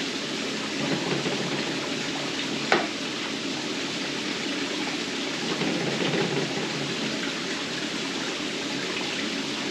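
Steady hiss of water, even and unbroken, with a single sharp knock a little under three seconds in.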